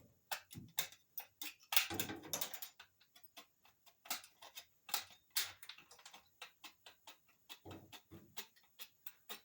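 Irregular light clicks and taps of a sheet-metal patch panel being handled and positioned against a car's quarter panel, with a short burst of scraping and rattling about two seconds in.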